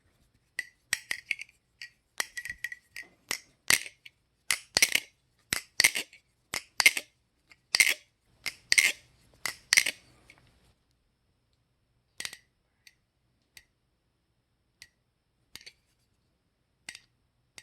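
Bgrooves Replicant butterfly knife with G10 scales being flipped: a run of sharp metallic clacks, about two a second, as the handles swing and strike, stopping about ten seconds in and followed by a few faint scattered clicks.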